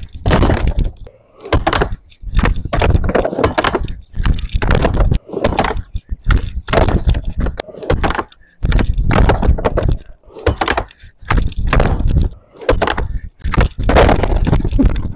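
Skateboard on a wooden quarter pipe in repeated blunt kickflip attempts: wheels rolling over the ramp, the board knocking against the coping and clacking down hard. It comes in a string of short takes that each start and cut off abruptly.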